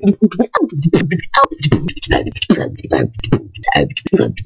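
A woman beatboxing a new-school freestyle: a fast run of mouth-made kick and snare hits and clicks, with a low buzzing throat bass underneath.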